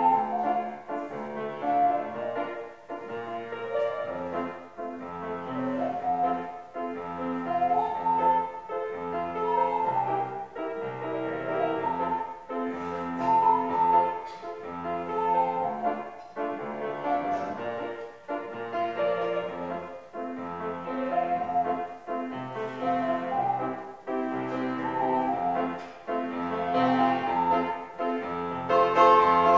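Ocarinas playing a slow hymn melody in 6/8 time over keyboard accompaniment.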